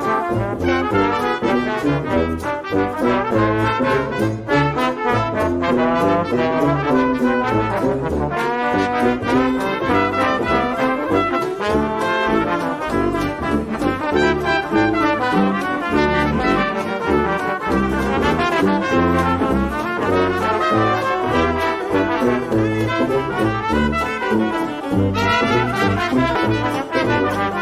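Background music led by brass instruments, with a steady beat.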